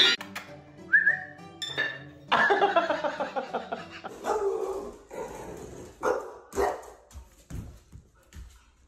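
A dog making drawn-out whining calls, then several short barks near the end.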